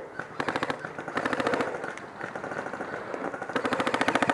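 Airsoft gunfire in full-auto bursts: three rapid strings of shots, roughly fifteen a second, the last and loudest near the end.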